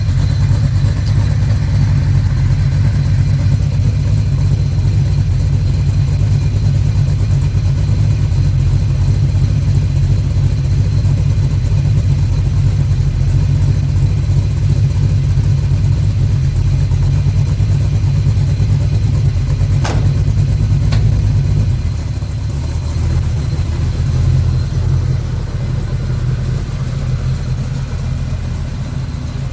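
Small-block Chevy V8 in a square-body C10 pickup running through glasspack mufflers straight off the headers, a steady deep exhaust note that eases off and gets quieter about two-thirds of the way through. Two sharp clicks are heard shortly before it eases off.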